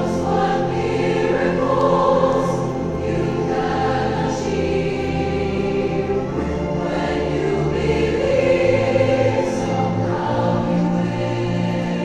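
A large combined choir singing a slow song with orchestral and wind-band accompaniment, held low bass notes underneath.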